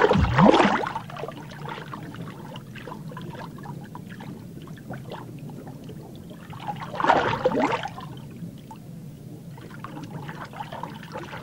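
Watery gulp and rush of an arapaima sucking in its prey, loudest right at the start with a sweep falling in pitch. Another watery surge comes about seven seconds in, over a steady low underwater hum.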